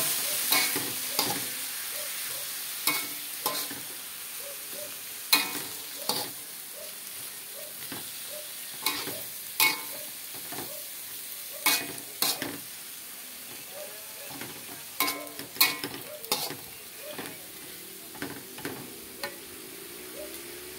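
Metal spatula scraping and knocking against a metal wok while pounded cassava leaves are stir-fried, over a steady sizzle. The knocks come irregularly, about one or two a second, and grow sparser near the end.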